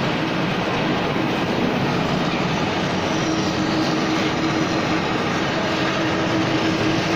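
CW62100Q heavy horizontal lathe running: a steady mechanical drone, joined about three seconds in by a steady low hum.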